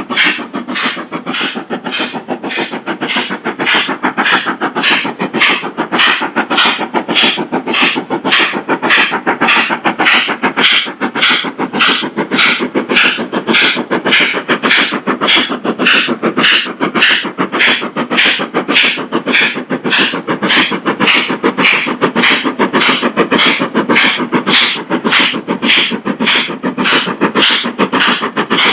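Steam locomotive exhaust beats, a steady, even chuff at about two beats a second, from an engine working hard up a steep gradient.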